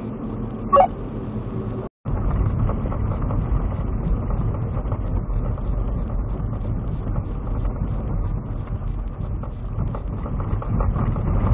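Lexus GX470 driving, heard from inside the cabin: a steady low rumble of engine and road noise, with a brief squeak under a second in. After a short dropout about two seconds in, the rumble is louder and rougher as the tyres roll on gravel.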